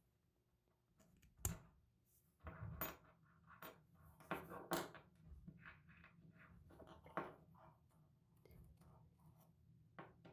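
Faint, irregular light metallic clinks, taps and short scrapes of small metal tool parts being handled on a workbench, the sharpest about a second and a half in and around the middle.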